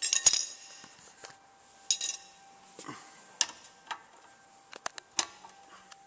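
Steel hand tools clinking: a breaker bar and socket being handled, with a ringing metallic clink at the start, another about two seconds in, then several short sharp clicks near the end.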